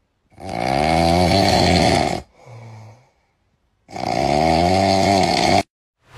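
A man snoring loudly: two long snores of about two seconds each, with a shorter, quieter breath between them.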